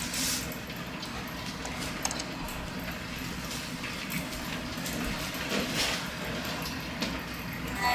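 Faint handling noises from an electric guitar being picked up and positioned: a few scattered light knocks and rustles over a steady background hiss, with no notes played.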